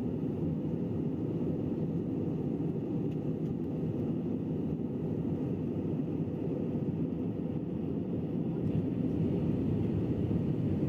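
Steady low rumble of an Airbus A320-family jet's cabin in flight: engine and airflow noise heard from inside the passenger cabin.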